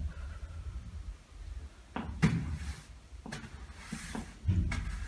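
A broom sweeping a floor: three or four strokes from about two seconds in, each a knock of the broom head followed by a brushing swish.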